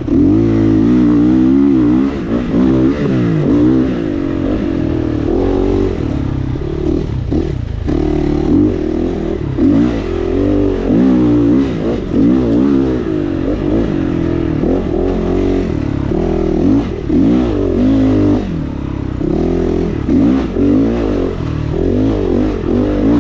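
Four-stroke GPX FSE 450R dirt bike engine being ridden hard. Its pitch rises and falls again and again as the throttle is opened and closed through the gears.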